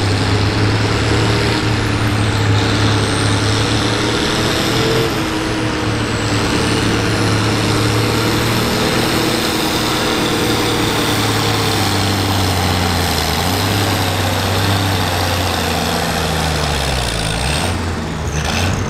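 Farm stock diesel pulling tractor's engine running hard under load during a pull, with a high whine sliding up and down above it. Near the end the engine note dips.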